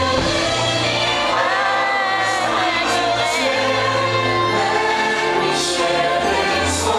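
Fireworks-show soundtrack music with a choir singing, played loud over loudspeakers, with a few brief crackles of hiss from the fireworks.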